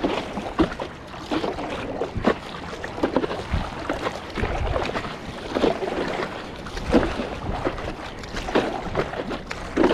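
Stand-up paddleboard paddle strokes splashing in choppy sea water, with water slapping against the board and wind gusting on the microphone.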